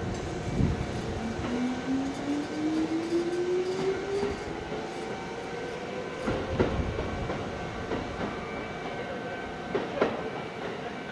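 Kintetsu electric train accelerating away from the platform: its traction motors whine in one tone that rises steadily in pitch over the first several seconds, over a low running rumble. The wheels clack sharply over rail joints a few times.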